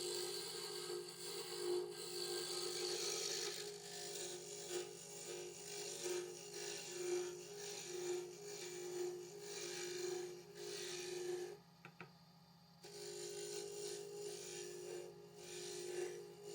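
Wood lathe running with a willow pen blank being worked as it spins: a steady hum under a rasping, rubbing noise of the wood being cut or abraded, which drops away for about a second two-thirds of the way through and then resumes.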